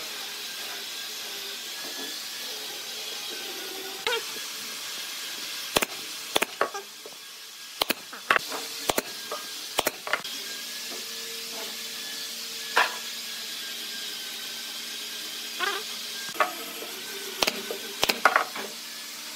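Wooden pieces knocking and tapping as a wooden block support is set against a wooden wheel, then a few sharp shots from a pneumatic brad nailer near the end, over a steady hiss.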